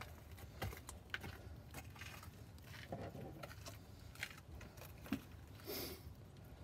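Faint metallic clicks and rattles of a small pipe cutter being handled and set onto a brake line, with scattered short ticks and a brief rustle near the end.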